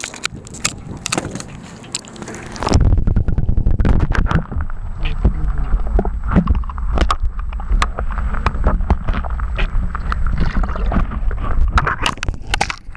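Water sloshing and bubbling heard through a camera microphone held under the surface, a muffled low rumble dotted with many clicks that starts suddenly about three seconds in, after a few seconds of scattered handling knocks.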